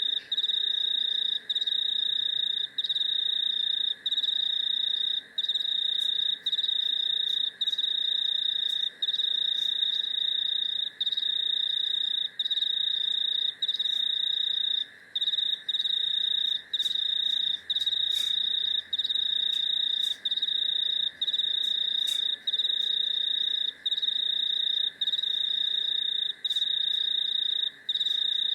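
Crickets and cicadas singing: a loud, high, steady trill that stops for a moment about every second and a quarter, over a lower continuous insect drone.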